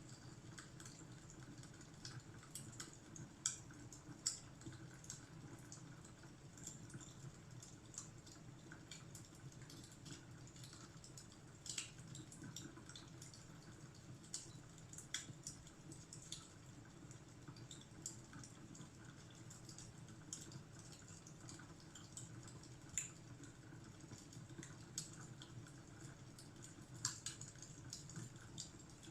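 Wood fire crackling faintly: irregular small pops and snaps over a low steady rumble.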